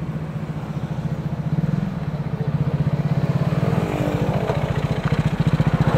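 Motorcycle engine running under way with a steady, pulsing note that rises slightly about two seconds in.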